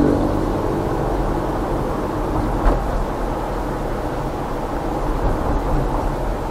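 Steady engine and road noise of a car being driven, with one short knock about two and a half seconds in.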